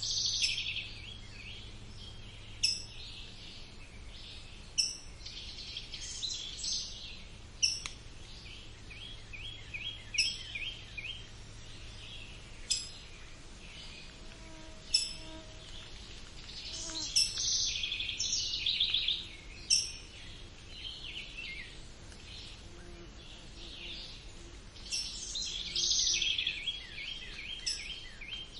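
Several songbirds singing at once, mixing warbled phrases and rapid trills. Sharp, loud chip notes cut through every few seconds.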